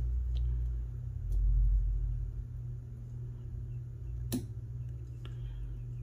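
Faint clicks and ticks of a shallow hook pick working the pins of a century-old Yale & Towne push-key padlock, with one sharper click about four seconds in, over a steady low hum.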